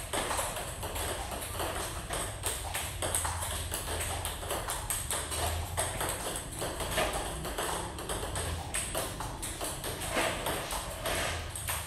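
Table tennis balls clicking in quick succession off rackets and table tops, with more than one rally going at once. A steady low hum runs underneath.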